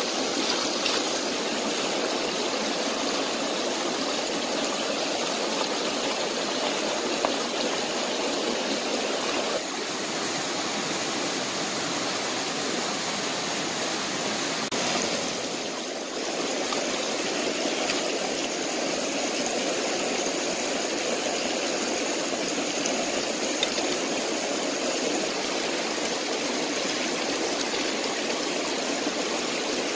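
Steady rushing of a shallow stream flowing over rocks, briefly a little quieter about halfway through.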